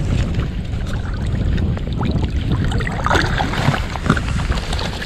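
Wind buffeting the microphone over lapping water, with small splashes about three seconds in as a rudd is released by hand at the water's surface.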